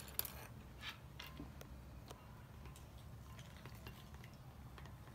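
Faint, scattered clinks and scrapes of a stirring stick against a glass bowl as a glue mixture for slime is stirred, over a low steady hum.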